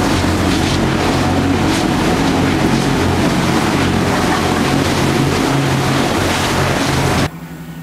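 Cruise boat running under way, its engine hum mixed with loud wind and water rush. The sound drops suddenly near the end to a quieter steady hum.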